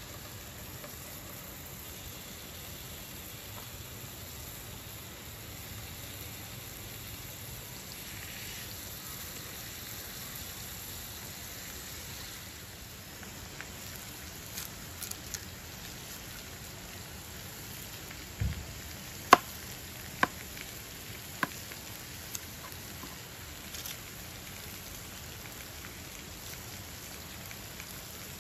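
Slices of meat sizzling steadily in a frying pan on a portable gas stove. From about halfway, a few irregular sharp knocks of a knife chopping shallots on a cutting board come through, loudest around two-thirds of the way in.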